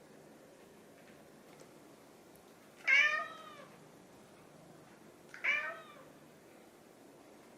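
Domestic cat meowing twice, about two and a half seconds apart, the first call louder and longer, rising and falling in pitch: a hungry cat asking for food.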